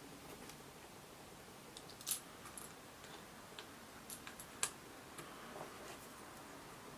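Scattered small clicks and taps of hard parts being handled as a clamp is fitted onto a thermal camera's rifle-mount housing, the sharpest click about four and a half seconds in.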